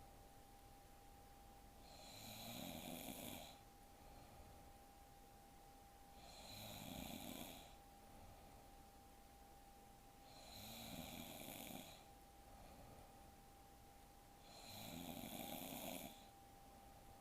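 A young woman snoring in her sleep: four snores about four seconds apart, each lasting over a second, with quiet breathing between them. A faint, steady, high hum runs underneath.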